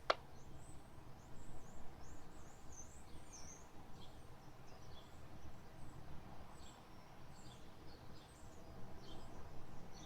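Faint, scattered high chirps and twitters of small songbirds over a low, steady background rumble.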